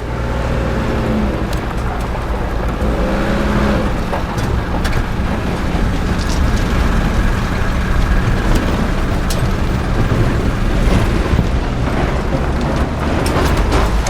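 Tractor engine running steadily under tow, a continuous low drone. Two short tones that bend in pitch sound in the first few seconds.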